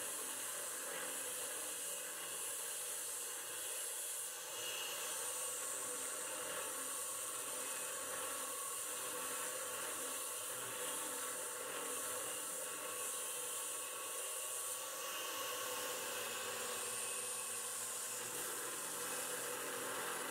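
Steady hiss of compressed air from a brass nozzle aimed at the cutter while a PM25 milling machine counterbores holes in an aluminium plate.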